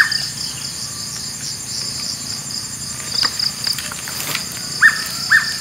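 Insects chirring in a high, steady, pulsing trill, with a few short sharp chirps (one at the start, two near the end). Faint scattered crackles of footsteps on dry palm fronds.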